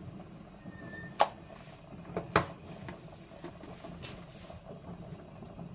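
Kitchen clatter while salt is added to a pan: two sharp clicks about a second apart and a few fainter ticks, over a faint steady low hum.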